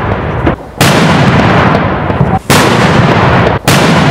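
Heavy flash-powder salute firecrackers (Shark 3 and Cobra 6) exploding: very loud bangs about a second or two apart, each followed by a long echo that cuts off abruptly where the explosion clips are edited back to back.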